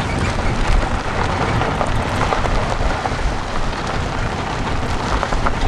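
Wind buffeting the microphone of a moving open safari jeep, a steady rushing noise with low rumble, over the jeep's running engine and tyres on the dirt track.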